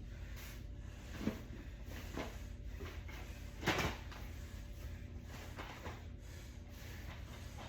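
Rummaging and handling noises: a few light clicks and knocks, with a louder knock or clack a little under four seconds in, over a steady low hum.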